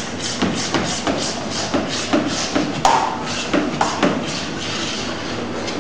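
Knife cutting through laminated croissant dough against a steel worktable, in short repeated scraping strokes about three a second.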